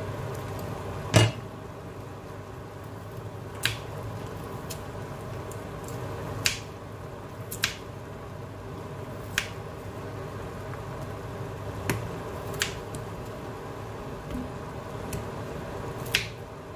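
Heavy enamelled cast-iron casserole lid set down with a loud clank about a second in, then a series of sharp knocks and taps against the pot as potato chunks go into the stew, over a steady low hum.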